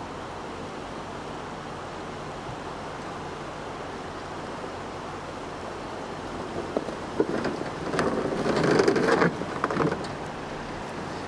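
Jeep Wrangler crawling slowly over rock, its engine running low and steady; from about six and a half seconds in, a few seconds of scraping, crunching and sharp knocks as the tires and underside grind over the rock ledge.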